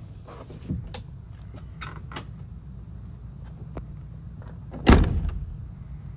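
A Land Rover Defender 90's door slamming shut about five seconds in, a single solid slam that dies away quickly. Before it come a few light clicks and knocks from the door and cab.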